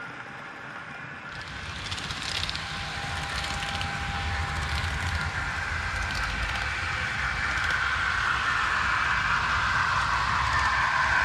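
Model freight train running on its track, heard from a camera riding on the train: a steady rolling rumble and rattle of wheels on the rails that grows louder, with a few light clicks early on.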